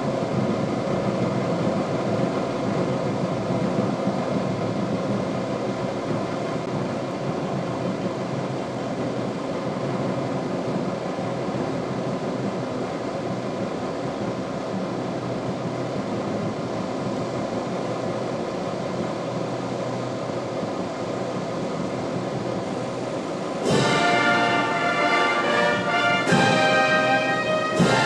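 Ceremonial military brass band music. A dense, steady wash of sound gives way about three-quarters of the way through to loud, clear brass chords.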